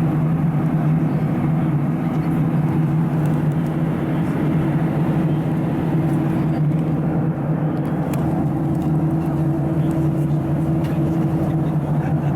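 Steady cabin drone inside a Boeing 737-700 in cruise: CFM56-7B engine hum and airflow noise, even and unchanging, with a low steady hum tone running through it.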